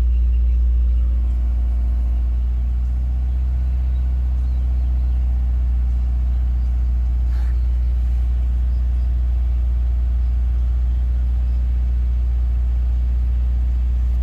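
Subaru WRX's turbocharged flat-four engine running with a steady low rumble. The revs settle slightly about a second in, and there is one brief click about halfway. The owner suspects an exhaust leak behind the car's odd sound.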